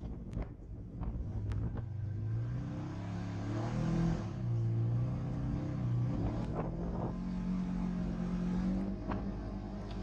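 Polaris RZR 900 side-by-side's engine, revving up and easing off over and over as it drives through soft sand, with scattered knocks and rattles from the bumps.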